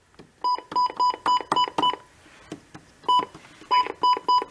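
Midland WR-300 version 5 deluxe weather radio giving its old-style keypress beeps as its buttons are pressed: a quick run of about seven short, identical electronic beeps, a pause, then about five more near the end.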